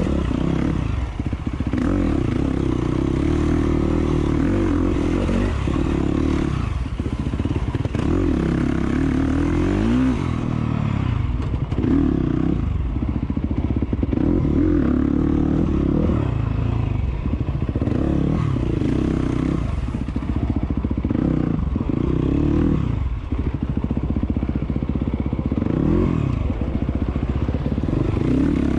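Enduro motorcycle engine ridden hard off-road, the throttle opened and shut over and over, with the pitch rising several times as the bike accelerates and dropping away between.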